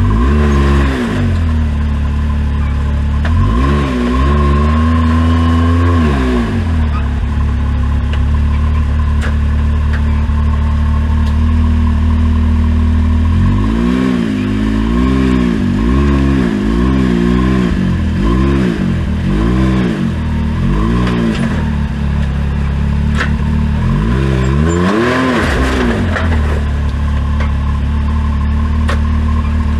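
Side-by-side UTV engine running, its throttle blipped up and down again and again: a couple of revs near the start, a quick run of short revs in the middle, and another rev near the end, over a steady engine drone.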